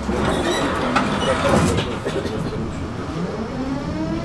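Tram running along a city street, heard from inside the car: rolling noise on the rails with a few clicks, and a motor hum that rises steadily in pitch over the second half. A city bus runs alongside.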